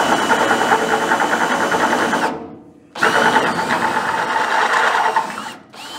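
Electric drill boring a 5/8-inch (16 mm) hole through steel, a steady motor whine over the chatter of the bit cutting. It runs in three stretches, stopping briefly about two seconds in and again near the end.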